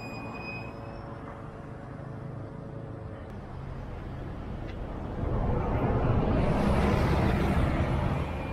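Road traffic passing close by: a steady engine hum, then from about five seconds in a much louder rush of engine and tyre noise as a bus goes past.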